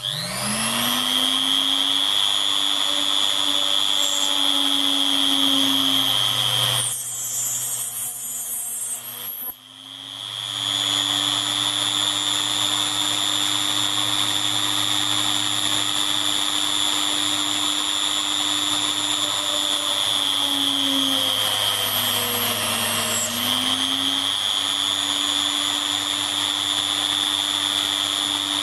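Hilda rotary tool's motor whining at high speed as it spot-drills a brass end plate with a stub drill, spinning up at the start. It stops about seven seconds in and starts again about three seconds later. Its pitch sags briefly a few times near twenty-one seconds in as the bit cuts.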